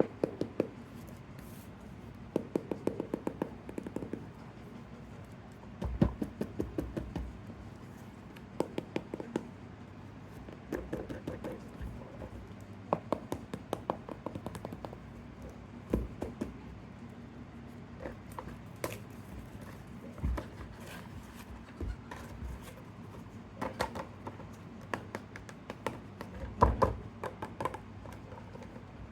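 Hands handling small toys and their packaging, giving irregular clusters of light clicks, taps and knocks.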